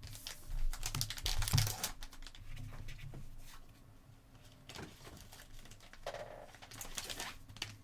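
Trading cards and pack wrappers being handled at close range: quick clusters of light clicks and rustling, busiest in the first two seconds and again near the end.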